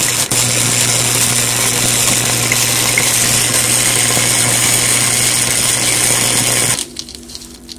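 Electric arc welding: a loud, steady crackling buzz with a low hum under it, cutting off abruptly near the end.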